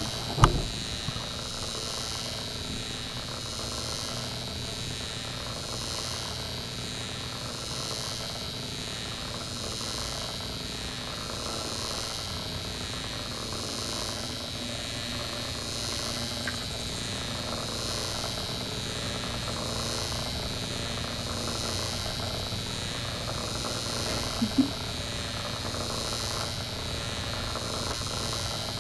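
Steady background hiss and low hum of a room microphone, with a faint thin high whine throughout. A sharp knock comes just after the start and a softer one near the end.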